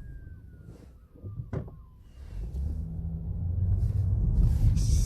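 Low traffic rumble of a vehicle growing steadily louder, with a sharp click about one and a half seconds in and a faint, slowly falling whistle in the first two seconds.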